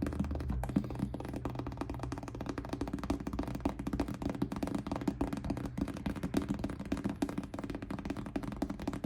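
Experimental noise music: a dense, rapid patter of taps and clicks over a steady low hum, with a deeper drone dropping away within the first second.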